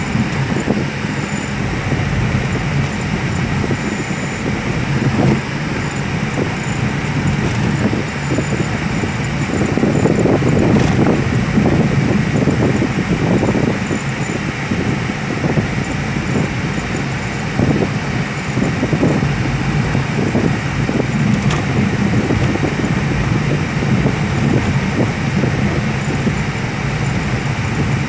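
Steady road and engine noise inside the cabin of a car driving along a highway, swelling a little now and then.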